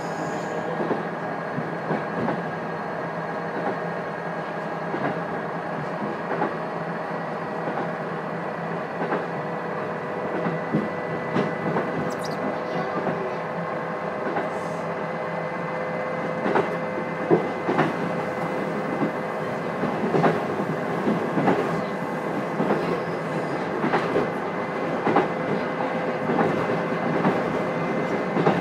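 Onboard running sound of a KiHa 200 diesel railcar, heard from a seat directly above the engine with the windows closed. A steady running noise is punctuated by irregular clacks of the wheels over rail joints, which grow louder and more frequent past the middle.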